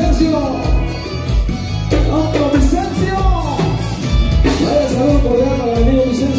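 Dance music with a steady bass beat and a singing voice, played loud.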